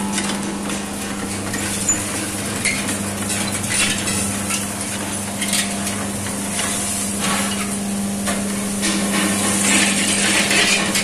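Rice roasting machine running: a steady motor hum under a continuous rattle and hiss of roasting rice grains sliding and ticking against the stainless-steel drum and tray.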